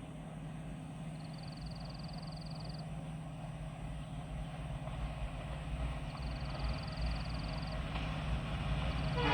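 WDP4D diesel locomotive approaching, its low engine rumble slowly growing louder. A fast-pulsing high-pitched chirring comes three times over it.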